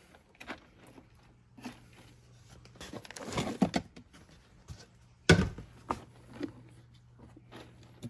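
Hands scooping and spreading moist, soil-like substrate mix: soft scattered rustles and crumbles, with one sharper knock about five seconds in. A faint steady hum runs underneath.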